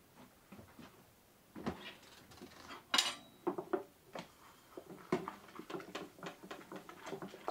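Dishes being washed by hand in a stainless steel sink: plates and cutlery clinking against each other and the sink. The loudest clink comes about three seconds in, followed by a quicker run of softer rattling.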